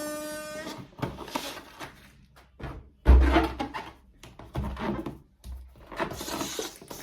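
A rubber balloon's squeal as air is let out through its stretched neck, cutting off under a second in. Then rubbery squeaks and handling noises as the balloons are squeezed and moved, with a heavy thump about three seconds in.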